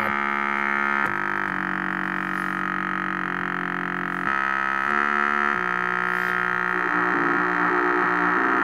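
EMS Synthi analog synthesizer playing sustained tones, several pitches at once, that step to new pitches a few times as its knobs are turned. Near the end the sound turns into a quick, repeating pattern of notes from the running sequencer.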